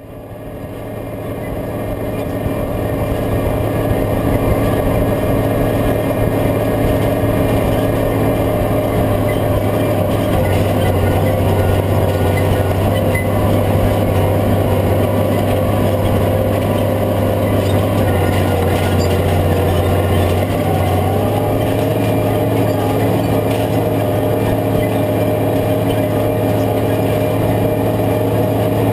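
Case IH 5230 tractor's diesel engine running steadily under load, pulling a field cultivator through the soil; it fades in over the first few seconds.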